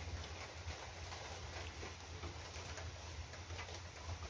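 Steady low rumble and hiss of strong wind, with scattered light taps.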